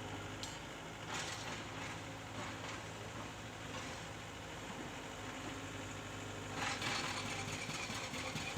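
Tracked excavator's diesel engine idling steadily, with a few light knocks.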